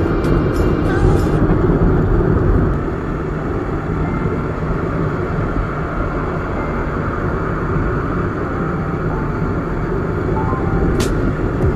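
Steady rumble of riding a Honda 70cc motorcycle, its small single-cylinder four-stroke engine and the wind on the microphone running together.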